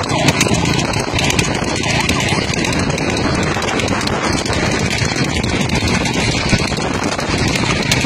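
Horse trotting on tarmac while pulling a two-wheeled racing cart: hoofbeats come through a loud, steady rush of wind and vehicle noise from close alongside.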